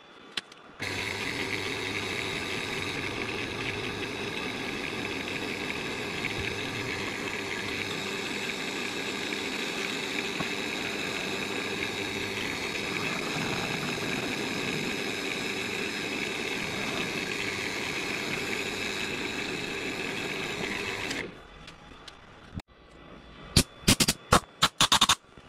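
Drill bit in a wood lathe's tailstock chuck boring into a spinning blank of melted crayon wax, a steady grinding hiss that starts about a second in and stops sharply after about 20 seconds. A few sharp clicks and knocks follow near the end.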